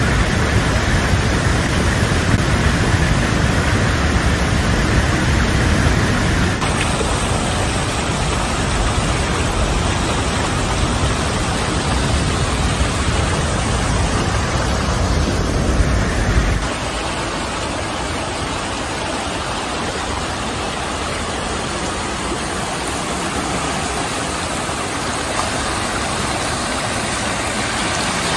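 Water gushing from a burst water main: a steady, loud rushing roar of spraying water and flowing floodwater. A deep rumble underneath drops away a little past halfway, leaving a lighter rush of water streaming along the flooded street.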